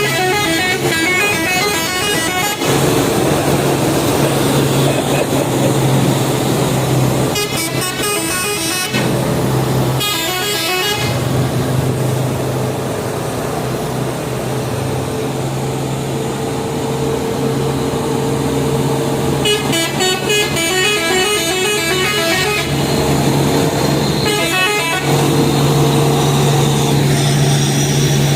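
Telolet musical air horns on trucks, sounding in about five bursts of rapidly alternating tones over a steady low drone.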